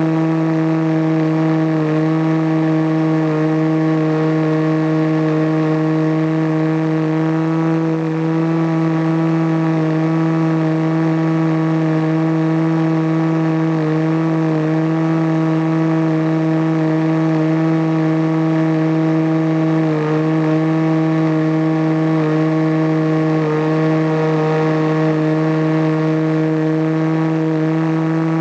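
Radio-controlled model airplane's engine and propeller running steadily in flight, close to the microphone. It holds an even pitch with a few brief slight dips.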